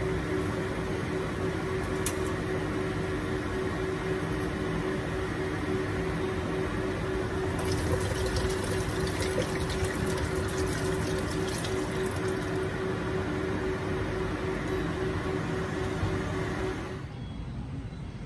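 Coconut water poured from a fresh coconut into a pot of pork, splashing for several seconds in the middle, over a steady hum with a constant tone; the hum cuts off suddenly near the end.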